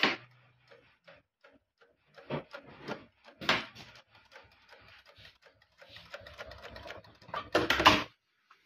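Dürkopp Adler 467 long-arm industrial sewing machine stitching fabric in short runs of rapid ticking, starting and stopping several times, with the loudest run near the end.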